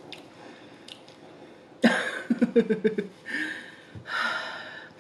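A woman's short chuckle, broken into quick pulses, starting about two seconds in, followed by two breathy exhales.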